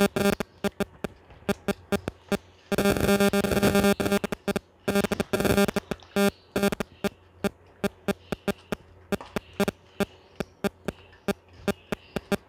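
Background electronic music with a steady clicking beat, about three or four clicks a second. Synthesizer chords swell twice in the middle.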